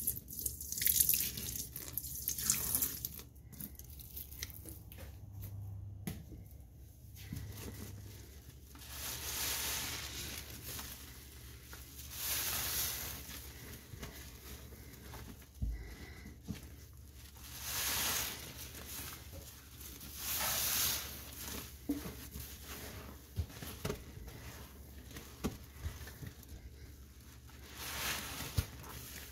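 Wet soapy sponge being squeezed over and over, each squeeze a swell of foamy crackle and hiss with water dripping, coming every two to three seconds.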